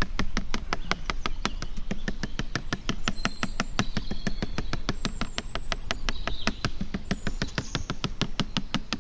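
Coconut palm flower stalk being beaten with a tapper's mallet: rapid, even knocks, about five or six a second. This is the beating that coaxes the stalk to give sap for toddy. Birds chirp faintly now and then.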